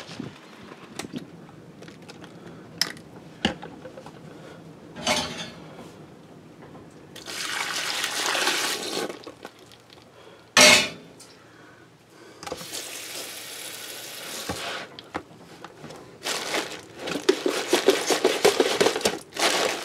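Water from a sink spray tap running twice, each time for a couple of seconds, into a tub of plastic Ziploc bags. A sharp knock comes between the two runs. Near the end, hands slosh and crinkle the bags about in the water.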